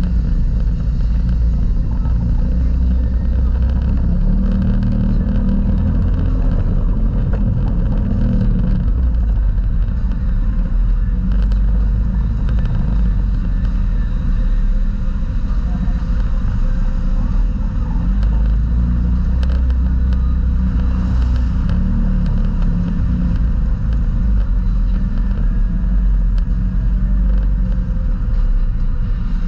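Off-road vehicle engine running steadily while driving slowly along a rutted, muddy trail: a deep, unbroken drone.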